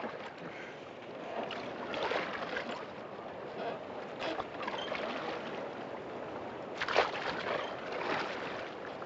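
Wooden oars dipping and splashing in water as a small boat is rowed, with water sloshing between the strokes. There are several uneven strokes, the loudest splash about seven seconds in.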